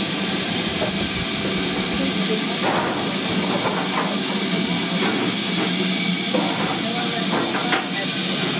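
GWR Modified Hall steam locomotive 6960 Raveningham Hall giving off a loud, steady hiss of escaping steam.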